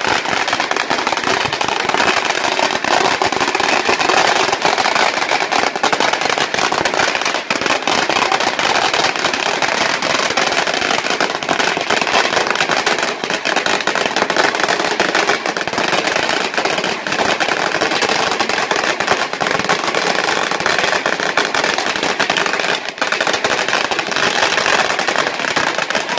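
A long belt of firecrackers going off in a continuous, rapid crackle of bangs, dense and steady without a break.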